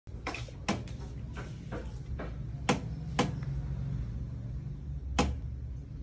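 Several sharp clicks and knocks at uneven intervals over a low steady hum.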